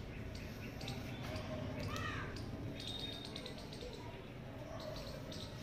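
Hair being cut with scissors: a quick run of small snipping clicks about three seconds in and again near the end. A bird calls once about two seconds in, over a steady background hum.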